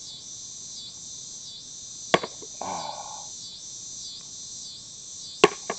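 Steady, pulsing chorus of cicadas. Over it come sharp knocks about two seconds in and twice in quick succession near the end: thrown metal washers striking the wooden washer box.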